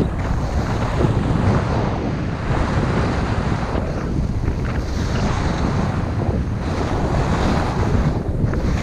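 Wind rushing and buffeting on a GoPro action camera's microphone during a ski run, with skis hissing and scraping over the packed snow, the hiss rising and falling every second or two.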